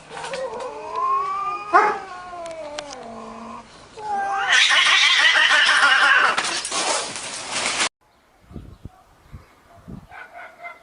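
Cat fight: a long, wavering yowl with a sharp crack near two seconds in, then loud, harsh screeching from about four seconds in that cuts off suddenly. Faint soft thumps follow.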